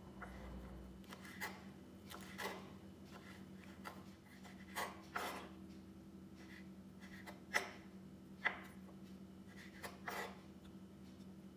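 Kitchen knife cutting ripe jackfruit on a wooden cutting board: irregular soft knocks as the blade meets the board, the sharpest two a little past halfway, over a faint steady hum.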